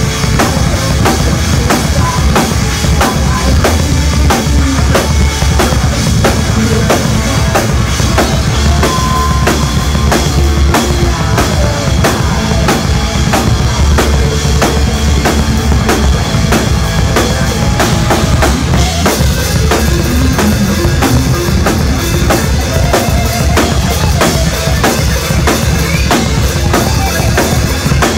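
Live band playing loud, heavy music, with the drum kit to the fore: fast, dense kick and snare hits over a heavy bass.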